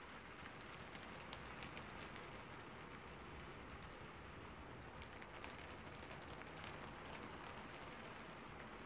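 Faint steady hiss with a few scattered soft ticks.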